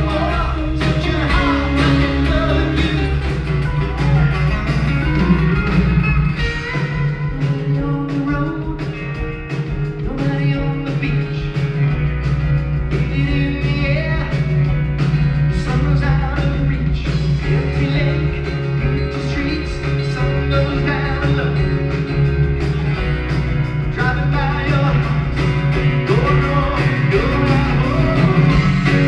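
Live rock band playing an acoustic set: a male lead singer over a steady electric bass line and strummed acoustic guitar.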